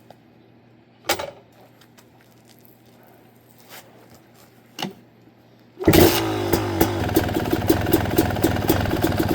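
A few short knocks, then about six seconds in a two-stroke dirt bike engine fires up and keeps running with a steady, pulsing exhaust.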